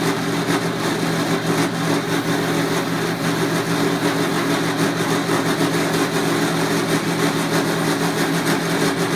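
Milling machine running with a steady hum while its cutter mills the pine block of a Pinewood Derby car body, a constant hiss of cutting over the motor tone.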